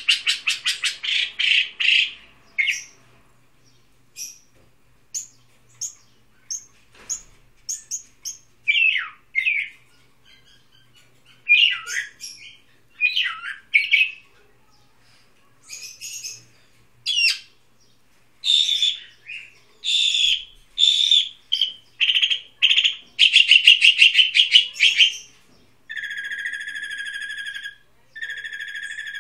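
A small caged songbird singing: varied phrases of short chirps, slurred notes and rapid trills with pauses between them, ending in two long, steady whistled notes.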